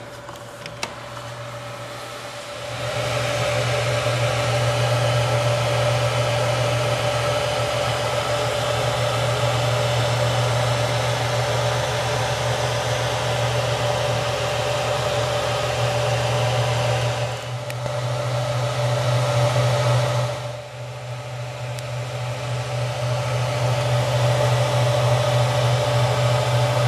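A motor-driven fan running with a steady whir, a low hum and one steady mid-pitched tone. It comes up about two seconds in and dips briefly twice past the middle before settling back.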